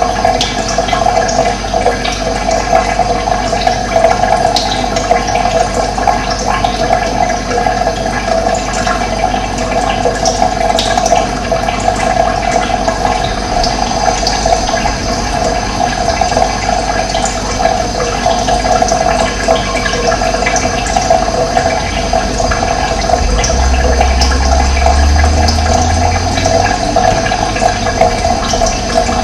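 Running water, a steady rushing flow. Past the middle a low rumble swells for a few seconds and fades.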